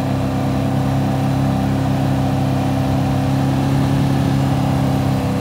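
Engine of an open-cockpit vehicle running at a steady speed while cruising, its hum holding one pitch, with road and wind noise over it.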